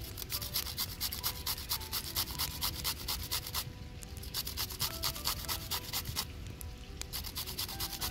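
Cucumber being grated on a metal box grater: quick rasping strokes, about five or six a second, in runs with short pauses.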